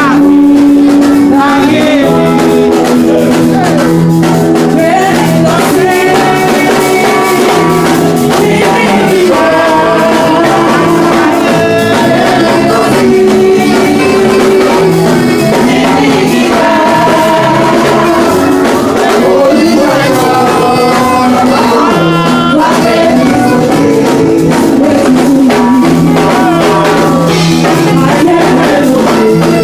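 Live church worship music: voices singing over instruments, with long held tones underneath and a continuous beat.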